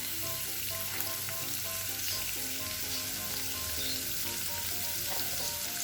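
Sliced onions sizzling steadily as they sauté in hot oil in a pan, just salted, with a few light clicks of stirring. Soft background music plays underneath.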